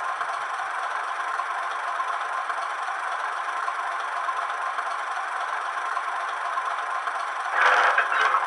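Sound from a Hornby Class 31 model locomotive's HM7000 DCC sound decoder, played through its small onboard speaker: a steady, rattling diesel-engine noise with no deep bass, growing louder near the end.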